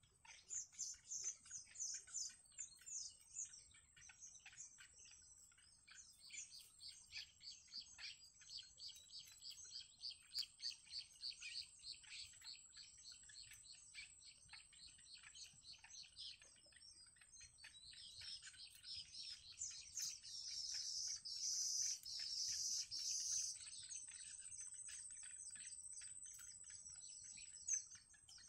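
Yellow bittern chicks calling in the nest: runs of short, high, thin chirps, several a second, growing denser and louder about two-thirds of the way through. A faint steady high tone runs underneath.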